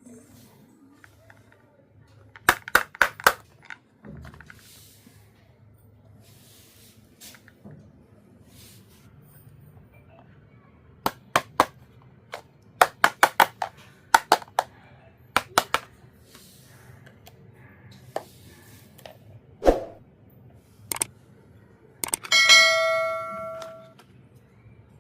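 Small miniature toy kitchen pieces clicking and tapping against each other and on a hard surface, in quick clusters of sharp clicks. Near the end one piece rings out with a bright metallic ding that dies away over about a second and a half.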